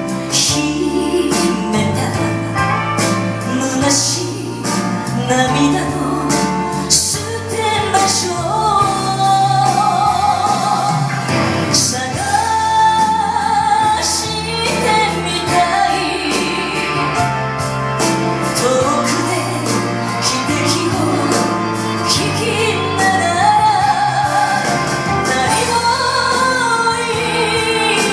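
A Japanese ballad sung over band accompaniment, with a woman's voice to the fore.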